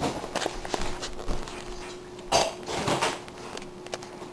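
Kitchen utensils and a mixing bowl being handled: scattered clinks and knocks, with two louder scraping bursts about two and three seconds in.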